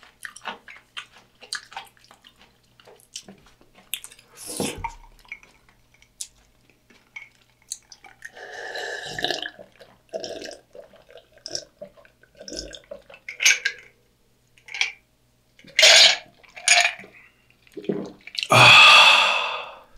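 Close-miked drinking of iced cola from a glass mug: small wet mouth clicks and gulps, with liquid and ice sounds. Near the end comes one long, loud breathy sound after the swallow.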